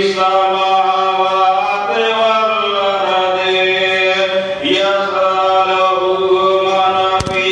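A man chanting into a microphone in long, held melodic phrases, the notes sustained and gliding between pitches. A brief sharp click sounds near the end.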